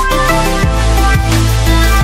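Electronic background music with deep bass notes that slide downward about twice a second.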